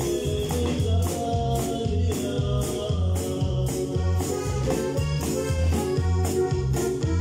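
Live band music: a drum kit keeps a steady beat with regular cymbal strokes over an electric bass line and sustained held chords.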